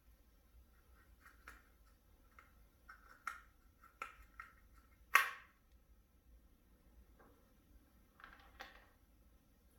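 Faint clicks and light knocks of hydraulic roller lifters being handled and fitted into a plastic lifter tray, one after another, with a sharper knock about five seconds in.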